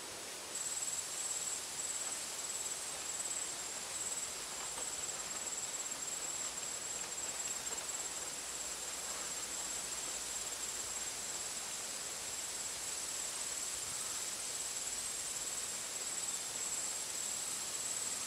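Insects trilling in one steady, high, slightly pulsing tone, coming in about half a second in, over a steady outdoor background hiss.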